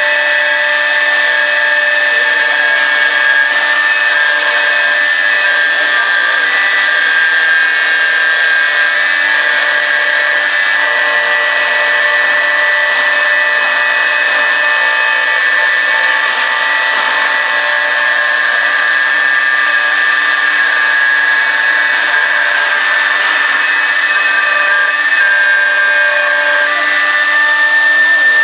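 CNC router spindle running with a steady high whine over a hiss of cutting, the pitch of its tones shifting slightly as the load changes.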